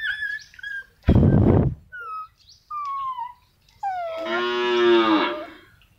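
Dogs crying at the nursing pile: high thin whimpers that slide in pitch, a short harsh burst about a second in, and then a longer drawn-out whining cry lasting about a second and a half.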